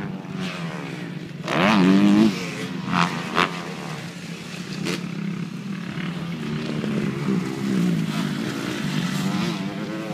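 Dirt bike engines revving up and down as the bikes ride a motocross track, with one bike's rev rising loudly about two seconds in.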